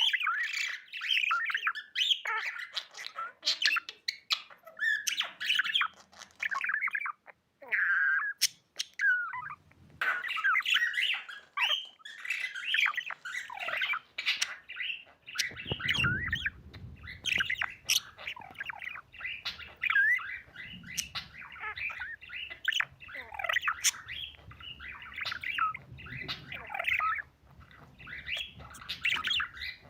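Budgerigar (budgie) chirping and chattering in a rapid, continuous stream of short warbled notes, the happy chatter of a contented pet bird, with a brief pause about a quarter of the way in. A low background rumble comes in about halfway and stays under the chirping.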